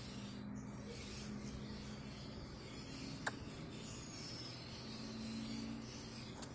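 Faint rubbing and handling noise from hands working a small plastic toy doll, with a single sharp click about halfway through.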